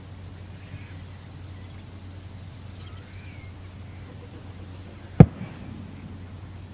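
Outdoor ambience: a low steady hum, a thin high steady tone and a few faint short chirps. A single sharp, loud knock comes about five seconds in.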